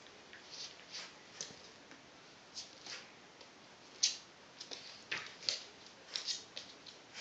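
A Cairn terrier's claws clicking and scuffing on a laminate floor as it tussles with a large plush toy: irregular sharp ticks, loudest about four seconds in.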